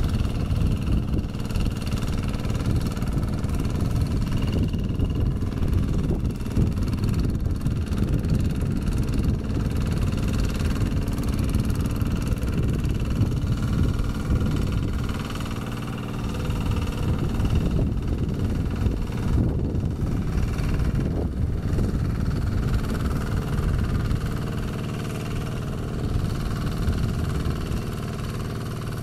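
Kubota RD110Di-2T single-cylinder diesel engine on a two-wheel hand tractor, running steadily under load as it pulls a rotary tiller through wet paddy mud. It gets quieter for a moment about halfway through and again in the last few seconds.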